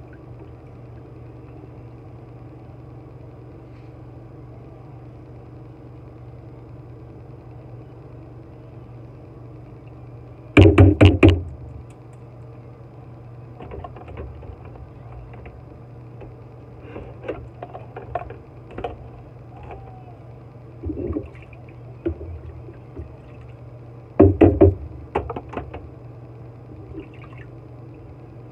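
Dishes and utensils clattering as they are washed and set into a drying rack beside a small sink: two loud bursts of knocks, about ten seconds in and again late on, with lighter clinks between, over a steady low hum.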